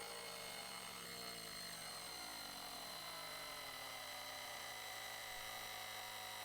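Cordless battery-powered tire inflator running steadily while pumping up a tire, heard as a faint, even hum with a whine that does not change.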